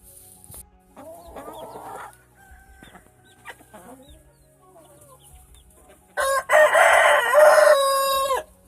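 Rooster crowing once, loud and long, near the end, after softer clucking and short calls from the chickens.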